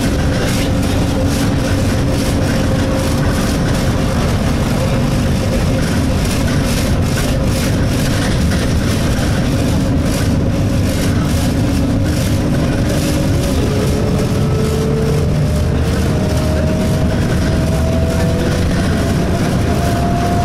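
Interior noise of an Alexander Dennis Enviro200 single-deck bus on the move: steady engine and road rumble with the annoying vibration sound in the cabin. About two-thirds of the way through, the drivetrain's whine starts rising slowly in pitch as the bus picks up speed.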